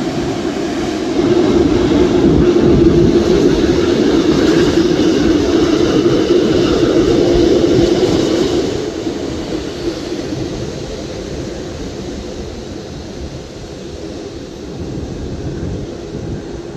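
Jet engines of a Boeing 787-9 airliner on landing: a loud, rushing drone that swells about a second in, holds for several seconds, then fades away.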